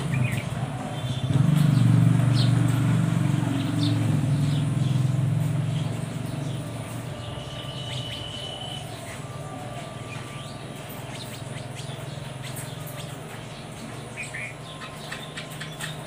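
House sparrows chirping in short, scattered calls that come more busily near the end. Under them a low motor rumble swells in the first couple of seconds, then fades away over the next ten, as a vehicle passing by would; it is the loudest sound here.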